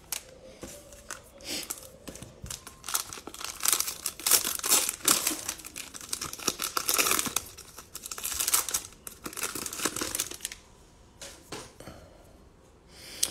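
Cellophane trading-card pack (2021 Mosaic football cello pack) being torn open and its wrapper crinkled in the hands, a long run of sharp crackles. The crackling dies down about ten seconds in to a few soft ticks as the cards are handled.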